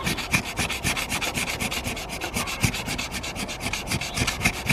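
Sandpaper rubbed back and forth over a small steel part of dismantled Felco secateurs, in quick, even scraping strokes, several a second, cleaning the dirt off the metal.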